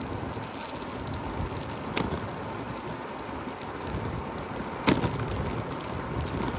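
Steady outdoor rushing noise with two sharp knocks about three seconds apart, the second the louder.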